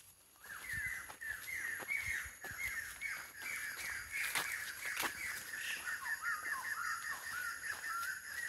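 An animal's long chattering call: a fast, unbroken run of short repeated notes that starts about half a second in, with some lower notes in the second half.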